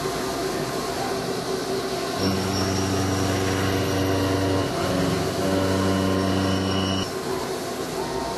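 DMU 40 monoBLOCK five-axis machining center face milling a ship propeller blade with a 40 mm face mill at 1,400 rpm. A steady-pitched hum of the cutter in the metal, with a faint high whine, starts about two seconds in, dips briefly midway and stops about a second before the end. Beneath it runs the machine's steady running noise.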